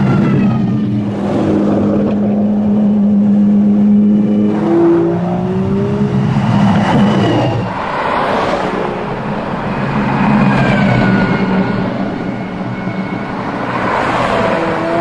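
A convoy of supercars, among them the Apollo Project EVO hypercar with its V12, driving past one after another. The engine notes rise and fall in pitch as each car comes by and goes away.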